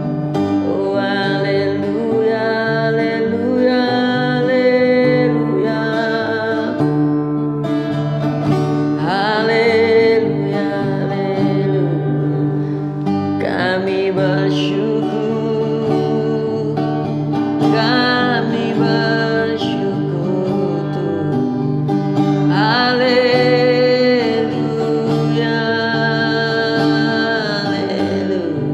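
Christian worship song with plucked guitar accompaniment and a sung melody line over it.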